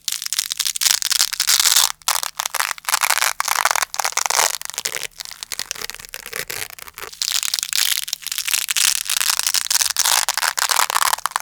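Hook-and-loop (Velcro) fastener crackling close to the microphone in long stretches of dense, crunchy crackle, broken by short gaps about 2 and 5 seconds in.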